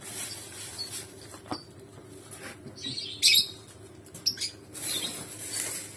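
Lovebirds giving a few short high-pitched chirps and squeaks, the loudest a little over three seconds in.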